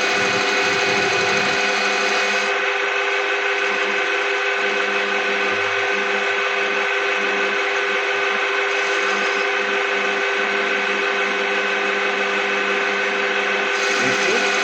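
Metal lathe running steadily with a constant motor whine, machining a BMW M20B27 piston held in a jig.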